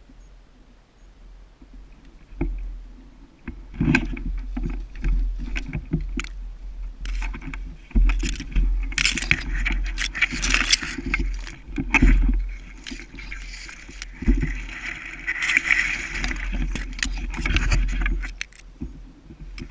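Rustling and crunching of someone moving through woodland undergrowth, with irregular clicks and rattles of gear and low knocks on the body-worn camera.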